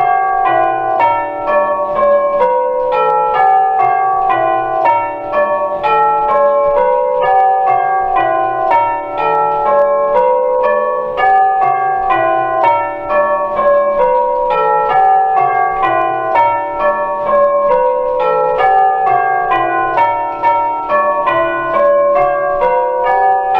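Eight brass tubular bells being rung in changes: a steady stream of single struck notes, stepping down in pitch in repeated runs, each note ringing on into the next.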